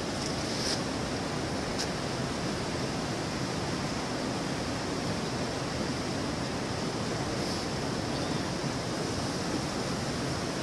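Steady, even rushing hiss with no pitch, with a few faint clicks about a second in and again near the end.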